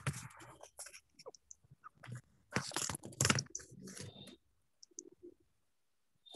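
Irregular rustling and crackling bursts with sharp clicks over a video-call audio line, the kind made by a device or microphone being handled. It stops about four and a half seconds in.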